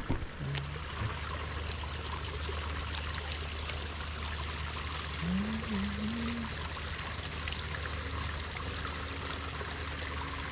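Steady trickle of running water. A brief low wavering tone is heard about halfway through.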